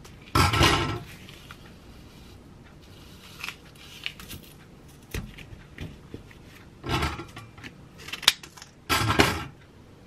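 Short bursts of kitchen handling noise: knocks, clatter and rustling as a glass and a small almond milk carton are handled and the carton is opened. The loudest bursts come just after the start, about seven seconds in and near the end, with a sharp click between them.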